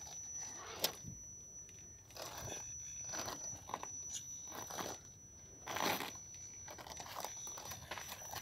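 Radio-controlled Baja Bug rock crawler's tyres scrabbling and crunching on gritty sandstone in several uneven surges as it climbs, the loudest about six seconds in, over a faint steady high whine.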